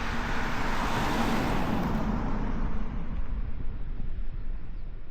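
A car passing by: tyre and engine noise swells to a peak about a second in, then fades away, leaving a low steady rumble.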